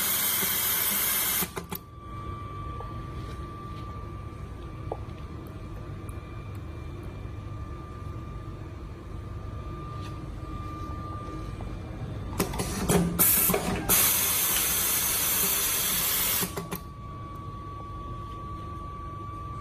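Semi-automatic pneumatic wire stripping and soldering machine working: a loud hiss of compressed air that stops about a second and a half in, then a low hum with a faint steady whine. Near the two-thirds mark a few clicks of the mechanism come, followed by another loud hiss lasting about three seconds.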